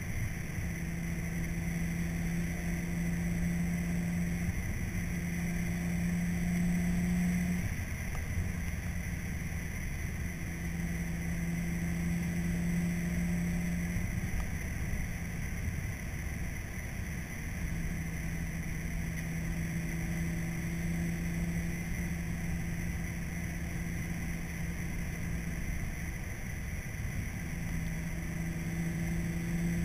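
Car cabin noise while driving: a steady rumble of road and engine, with a low hum that comes and goes several times.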